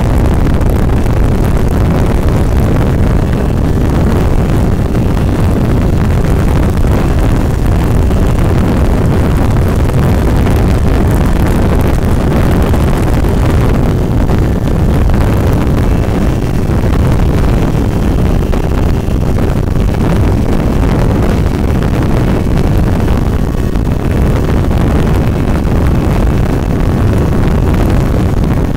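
Steady, loud wind rush buffeting the microphone, with the road noise of vehicles travelling at freeway speed.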